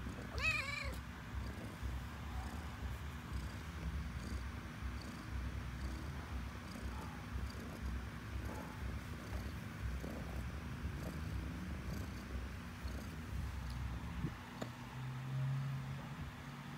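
Black-and-white domestic cat purring steadily in a low rumble, with one short meow about half a second in.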